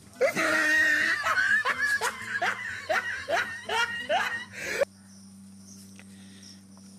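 A person laughing in a quick run of short bursts, about three a second, stopping just before five seconds in. A faint steady low hum carries on after the laughter.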